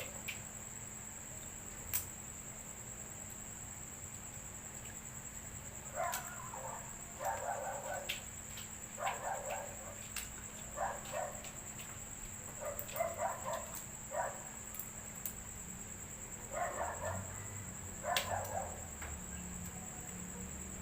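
Crickets trilling steadily in one high, unbroken tone. Short clusters of eating sounds come every second or so through the middle, as mud crab is cracked and chewed.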